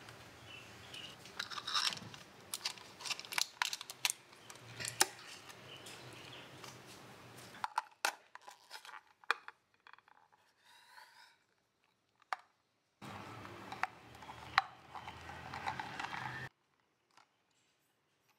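A paper sheet crinkling and a thin clear plastic cup lid crackling and clicking as they are pressed down over a plastic cup, in separate stretches of handling with sharp clicks. The sound cuts off abruptly about 16 seconds in.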